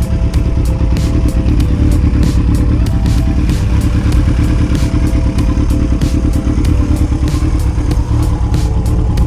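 Kawasaki KZ1000 MK2's air-cooled inline-four running through a Kerker exhaust while riding, a steady dense rumble. It is mixed with background music that has a steady beat.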